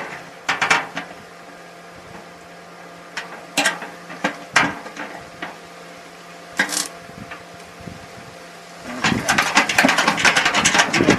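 A homemade microwave-transformer spotter and its dent puller working a dented steel fender: a few separate sharp clicks and metallic knocks, then a dense, rapid clatter in the last two seconds, over a steady low hum.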